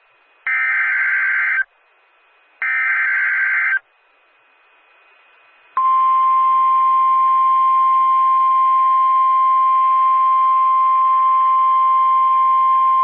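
Emergency Alert System broadcast on NOAA Weather Radio. Two short screeching SAME data header bursts come about a second apart. After a pause of about two seconds, the steady single-pitch 1050 Hz warning alert tone starts and holds, announcing a severe thunderstorm warning.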